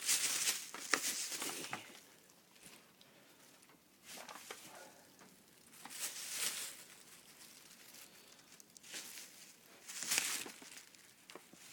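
Rustling and crinkling of fireworks packaging and plastic wrap being handled and moved, in several irregular bursts, loudest in the first two seconds.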